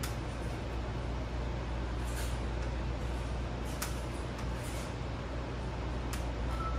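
Dreo Nomad One tower fan running steadily on the third of its four speeds: an even rush of air, measured at about 56 decibels, with a few faint clicks.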